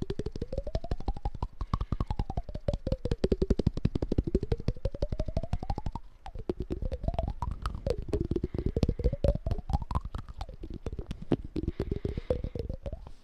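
Fast ASMR mouth tapping, about ten taps a second, the pitch of the taps sliding up and down. There is a brief dip about six seconds in.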